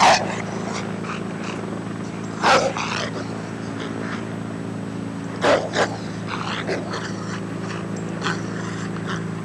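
Army patrol dog growling and barking in short loud bursts while working a bite sleeve in an intruder drill, over a steady mechanical hum.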